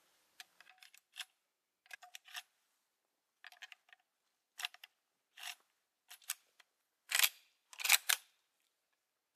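Metallic clicks and clacks of a Uberti replica Winchester Model 1894 lever-action rifle's action being handled as it is readied to shoot: a scatter of small clicks, then two louder clacks near the end.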